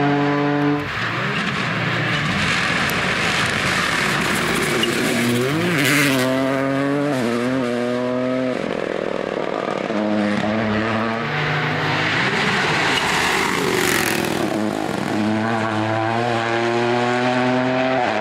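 Toyota GR Yaris Rally2's turbocharged 1.6-litre three-cylinder engine revving hard as the rally car accelerates and brakes through corners on a gravel road. Its pitch climbs and drops sharply again and again with gear changes and lifts, over the hiss of gravel thrown up by the tyres.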